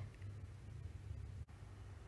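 Quiet room tone with a faint, steady low hum, which drops out for an instant about one and a half seconds in.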